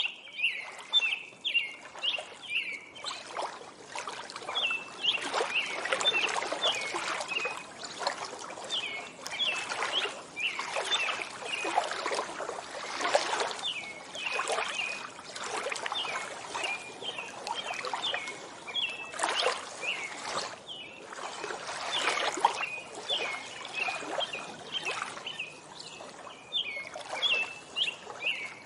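Songbirds chirping in quick runs of short, high notes, repeated throughout, over water lapping irregularly at a lakeshore.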